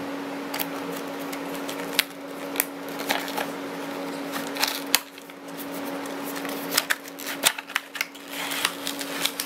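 Clear plastic blister packaging crinkling and clicking as it is worked out of a cardboard retail box: irregular crackles and taps of plastic and card being handled, over a steady low hum.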